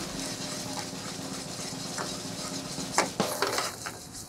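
Seafood pajeon batter sizzling in oiled steel frying pans over gas burners as the pans are swirled. About three seconds in there is a sharp metal clank of a pan against the burner grate, then a few lighter knocks.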